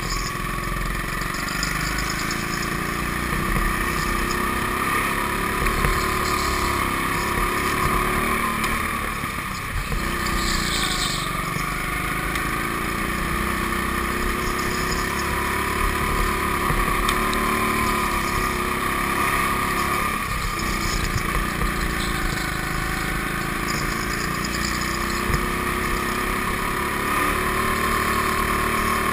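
Go-kart engine heard from on board, running continuously, its pitch rising and falling over and over as the kart speeds up and slows through the turns.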